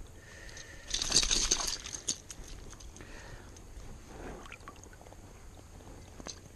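A burst of crackly rustling and clicks about a second in, lasting about a second, followed by a few fainter rustles and clicks.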